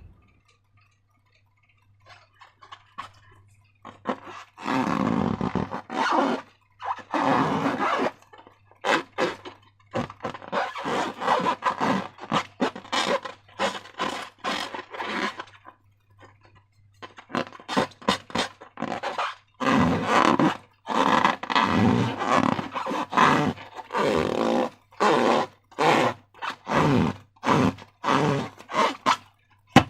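Slime and rubber balloons being handled and squeezed: a long run of irregular squishing and rubbing sounds, some drawn out over a second or two and some short, starting about four seconds in.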